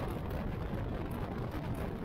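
Motorcycle riding at road speed: a steady rush of wind over the microphone with the engine and tyre drone beneath it.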